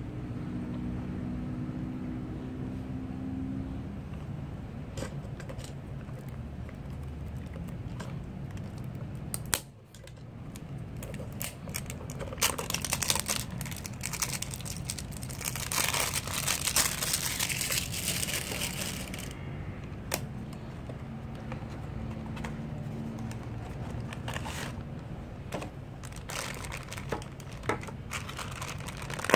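Packaging of a Funko Mystery Minis blind box being torn open and handled: a dense stretch of tearing and rustling in the middle, then the black foil bag from inside the box crinkling, with scattered crackles and clicks.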